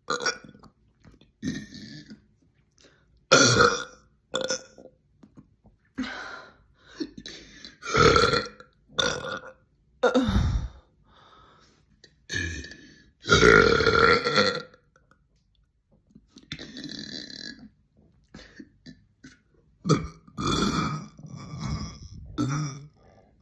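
Young women burping, one burp after another: a dozen or so, some short and some drawn out, the longest lasting over a second near the middle.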